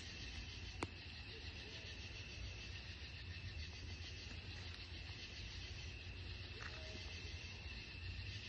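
Night-time insect chorus: a steady, high, continuous trilling with a fast pulsing texture, over a low rumble. A single sharp click about a second in.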